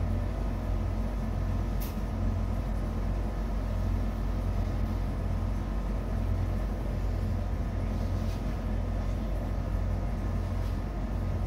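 Window air conditioner running with a steady low hum and even hiss.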